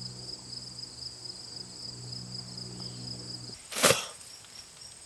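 Crickets chirping steadily under a low, steady drone. The drone stops about three and a half seconds in, and a short, loud whoosh follows at once.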